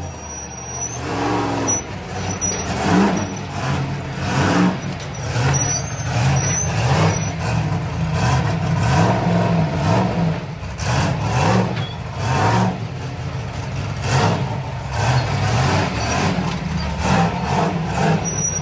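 An unlimited 4400-class rock-racing car's engine revving in uneven bursts, rising and falling again and again, as the car crawls down a steep boulder line.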